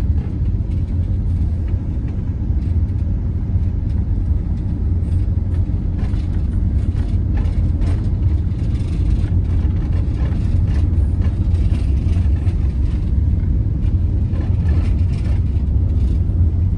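Campervan driving along at steady speed: an even, low road-and-engine rumble.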